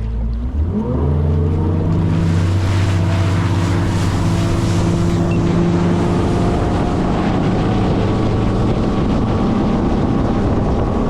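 Fishing boat's outboard motor throttling up about half a second in, its pitch rising, then running steadily at speed with wind and water rushing past.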